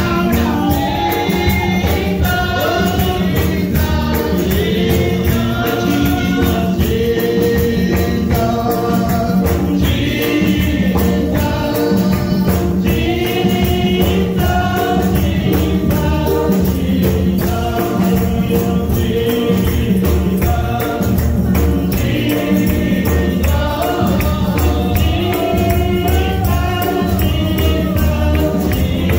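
Gospel music: a group of voices singing over instruments with a steady, driving beat.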